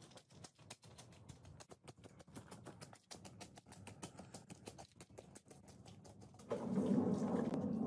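Quick, soft clicks and crackles, several a second, from wet mud and dirt on a soaked rug under rubber boots. Near the end a much louder, steady machine noise starts: a rotary floor scrubber running.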